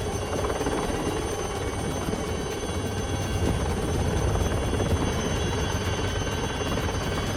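Steady rotor noise from a flying rotorcraft: a low rumble with faint, steady high whining tones.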